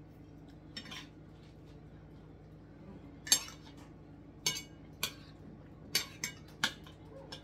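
Knife and fork clinking and scraping on a dinner plate while cutting and picking up food in sauce: a string of sharp clinks, the loudest about three seconds in.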